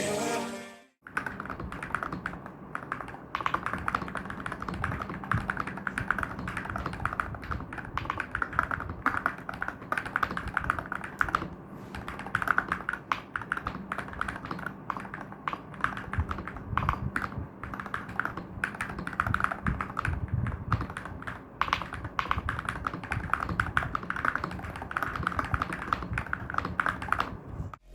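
Akko Tac75 HE mechanical keyboard being typed on fast and continuously, a dense run of muted keystroke clacks. The switches are relubed Akko AstroAim magnetic switches. The keyboard is damped with Poron switch pads, a tape mod, foam and switch films, and has lubed, Holee-modded stabilizers. The typing starts about a second in and stops just before the end.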